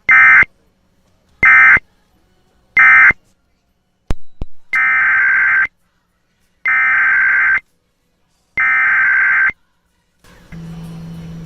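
Emergency Alert System SAME data bursts, a harsh warbling digital tone. Three short bursts about 1.3 s apart are the end-of-message code closing one alert. After a couple of clicks, three longer bursts about 2 s apart are the header code that opens the next Amber Alert (child abduction emergency).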